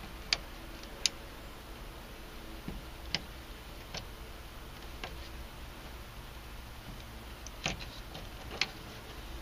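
Small screwdriver prying at the plastic clips of a car door speaker's wiring connector: about seven sharp, irregularly spaced clicks and ticks.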